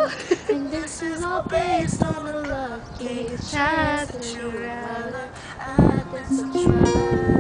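Young female voices singing a slow pop melody, accompanied by a strummed ukulele and small acoustic guitar; the strumming comes through more plainly near the end.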